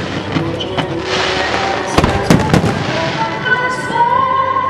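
Aerial fireworks bursting in sharp bangs, one at the start and a quick cluster of three or four about two seconds in, with crackling hiss between them. Music plays underneath.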